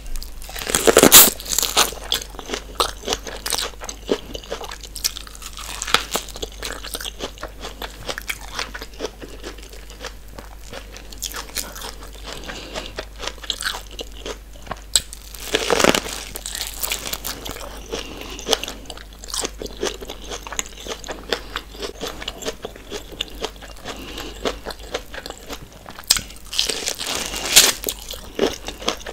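Close-miked biting into sauce-drenched corn on the cob, the kernels crunching and popping off the cob, with steady wet chewing in between. The loudest bites come about a second in, around the middle, and near the end.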